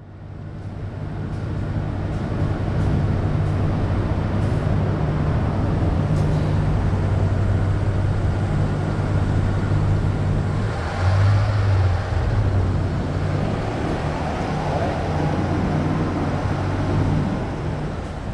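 Road traffic with the steady low hum of a nearby vehicle's engine, swelling briefly about eleven seconds in.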